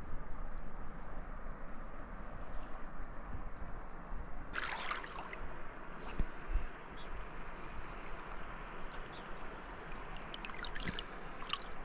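Shallow river water lapping and trickling close by as a steel mug is dipped in to be filled, with a splash about halfway through and a quick run of small splashes and drips near the end.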